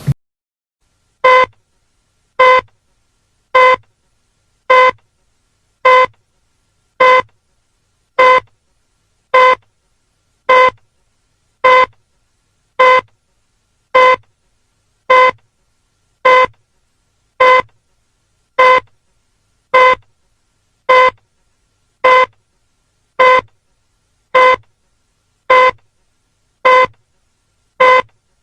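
A short electronic beep, the same pitch each time, repeated at an even pace a little over once a second, about two dozen times.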